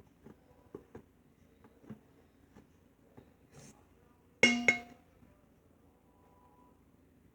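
Faint scattered taps, then two sharp clinks about four and a half seconds in, a fraction of a second apart, with a brief pitched ring: a hard utensil or container struck against a bowl.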